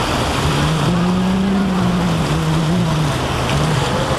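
Fishing boat under way: its engine running, with a pitched hum that rises a little about half a second in and fades near the end, over a steady rush of wind and water.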